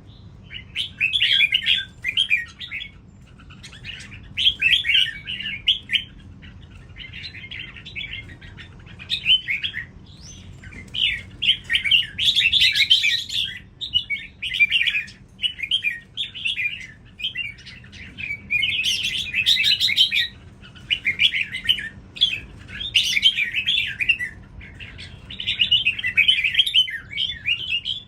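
Red-whiskered bulbul singing in rapid chattering phrases about a second long, repeated again and again with short pauses between.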